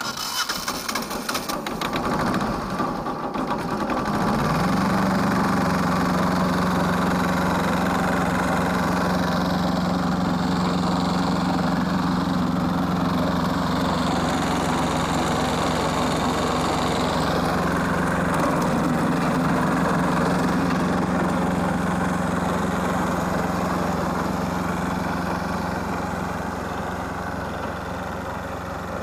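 Wood chipper's engine starting: rough and uneven for the first few seconds, then rising about four seconds in to a steady running speed.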